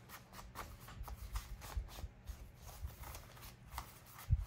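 Paper being handled and folded on a tabletop: light, irregular rustling and scraping, with one low thump near the end.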